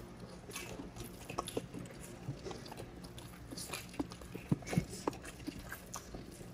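Close-miked chewing and lip smacking of people eating grilled chicken and rice by hand: irregular soft clicks and wet mouth sounds.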